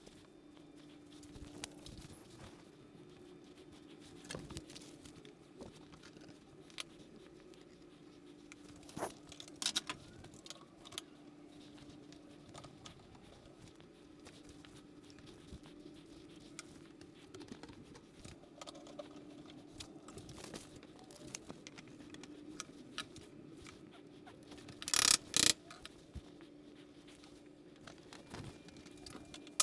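Small clicks, taps and rustles of tools and a workpiece being handled on a workbench, over a faint steady hum. Near the end come two short, loud bursts of noise close together.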